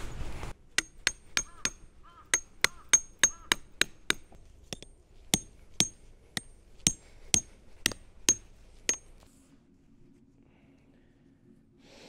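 Hammer driving steel tent pegs: about twenty sharp metallic blows in an uneven rhythm, each with a brief high ring, stopping about nine seconds in.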